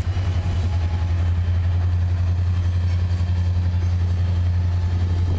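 Diesel freight locomotive's engine giving a steady, deep, rapidly pulsing drone as it pulls its train past.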